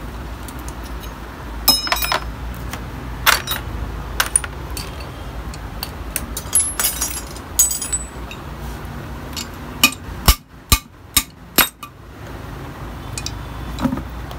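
Sharp metallic clinks and knocks as bare aluminium crankcase halves of a Yamaha RX100 two-stroke engine and loose tools are handled, scattered and irregular, with a quick run of about five clinks some ten seconds in, over a low steady background rumble.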